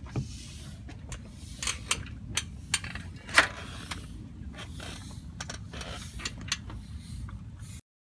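A bicycle being handled and ridden off: a string of sharp mechanical clicks and clanks from the bike, the loudest about three and a half seconds in, over a steady low rumble. All of it cuts off suddenly just before the end.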